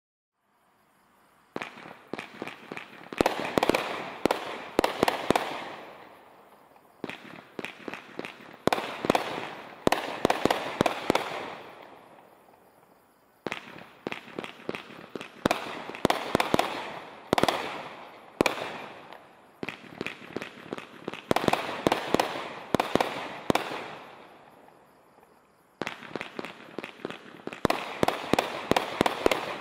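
A Brothers Fireworks 'Timeless Beauty' 49-shot, 500-gram firework cake firing, starting about a second and a half in. Its shots come in five volleys of rapid sharp reports and bursts, each volley fading out before a short pause and the next.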